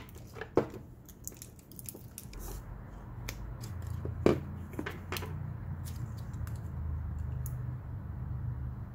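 Hands handling a small 18650 lithium battery pack and its BMS circuit board on a workbench: scattered light clicks and taps, with a low steady hum underneath from about a third of the way in.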